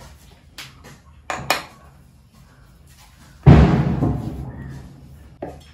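A few light knocks, then a loud thump about three and a half seconds in that fades out over a second and a half, as a flour-dusted dough ball is pressed and handled on a round rolling board; one more knock near the end.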